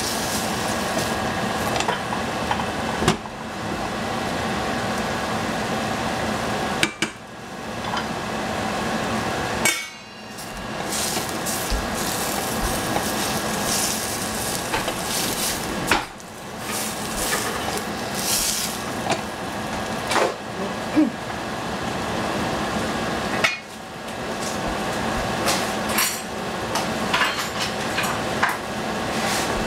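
Capsicum stir-frying in a pan: a steady sizzle, with a spatula knocking and scraping against the pan at irregular moments as the peppers are stirred.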